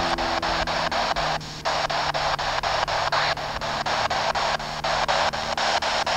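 Spirit box radio scanner sweeping through stations: a steady hiss of white noise chopped by clicks about six times a second as it jumps from channel to channel, over a low steady hum. The hiss drops out briefly about a second and a half in.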